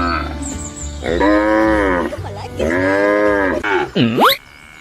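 Cattle mooing: two long moos of about a second each. Near the end comes a short swooping sound that dips and then shoots back up in pitch.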